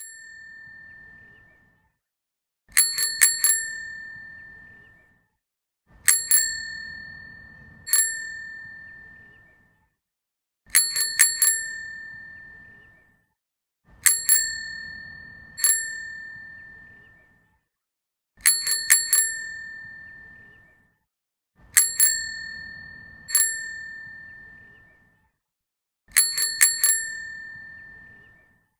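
Bicycle bell rung over and over: a rapid cluster of about three rings, often followed by a single ring a second or two later, with the pattern repeating about every four seconds. Each ring is a bright tone that fades out over a second or two.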